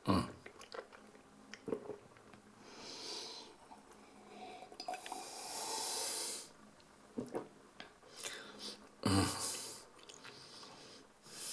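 A man drinking red wine from a glass: sips and slurps with breathing through the nose, the longest sip about halfway through. A sharp knock at the very start.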